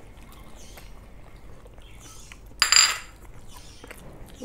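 A single sharp clink of tableware against a dish about two-thirds of the way in, ringing briefly with a high tone. Otherwise there are only faint small clicks.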